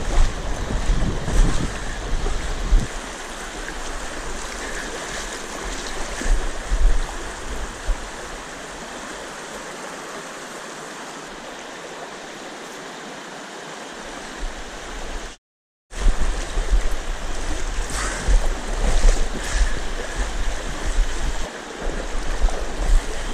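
Fast river current rushing over a shallow rocky riffle. Wind buffets the microphone with low rumbling gusts in the first few seconds and again in the last third.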